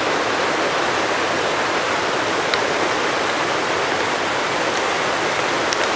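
Vipava river water pouring over a low stone weir: a steady, even rushing.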